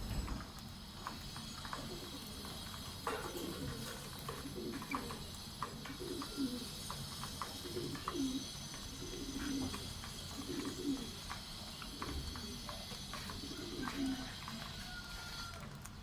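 Low cooing bird calls repeated about once every second or so, about eight in all, mixed with scattered light clicks.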